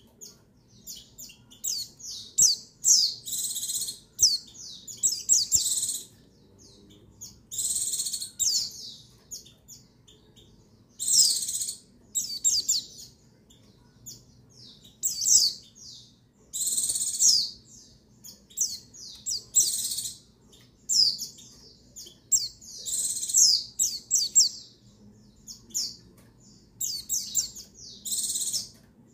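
White-eye (pleci) calling, which the title gives as a female's call used to stir males into song. It comes as short clusters of very high, thin, quick chirps with falling sweeps, one cluster every second or two.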